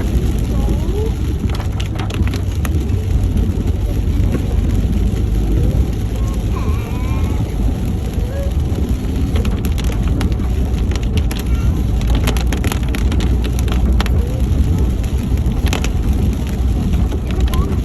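Vehicle driving through rain: a steady low engine and road rumble with raindrops ticking sharply and irregularly on the body and windscreen.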